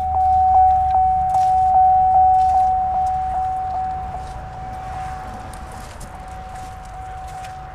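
GMC Sierra's warning chime in the cab ringing on, a steady high ding repeated about two and a half times a second, growing fainter after about four seconds. A low hum sits underneath.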